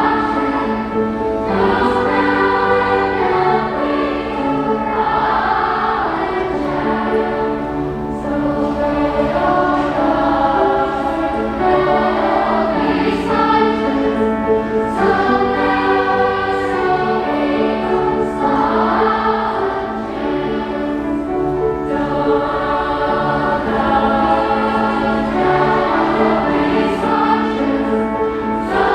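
A choir singing a slow song, with notes held for a second or two at a time.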